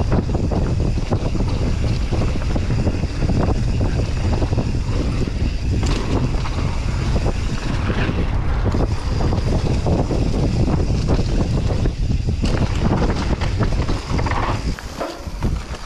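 Wind buffeting the microphone of a camera on a mountain bike riding downhill, with tyres on dirt and the bike clattering over rough trail. The low wind rumble is steady and drops briefly near the end.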